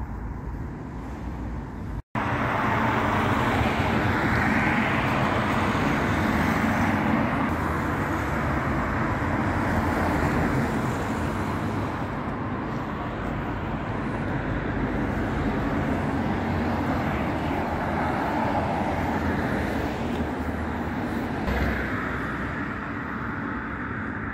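Road traffic noise: a steady wash of cars and tyres on a nearby road. It cuts out for an instant about two seconds in, then carries on evenly.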